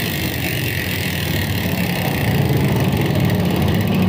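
Mountain bike rear hub's freehub ratchet buzzing as the wheel is spun by hand and freewheels: a rapid, steady run of clicks merged into one buzz. The hub's pawls have been modified for a louder 'wasp' buzz.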